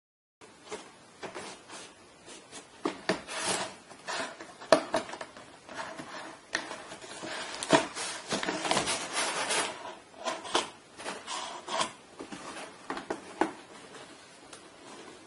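Cat scratching and shifting about inside a cardboard box: irregular scraping and rustling of cardboard, busiest in the middle and dying down near the end.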